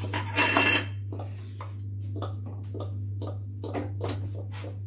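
Metal spoon stirring and scraping ghee-roasted coarse whole-wheat flour in a metal pan. A loud scrape comes about half a second in, then a run of short, softer scrapes, over a steady low hum.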